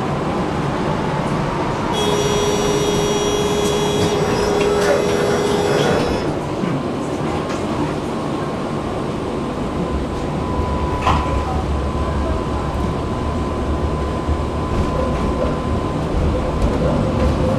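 Tram ride heard on board: a continuous rumble of the tram running on its rails. A steady electronic tone sounds for about four seconds, starting about two seconds in. About ten seconds in, a deeper rumble and a steady whine set in as the tram picks up.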